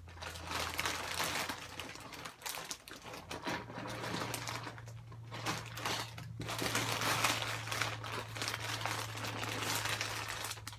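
Squishy packaging crinkling and rustling as it is handled, a dense run of irregular crackles with no pause, over a faint steady low hum.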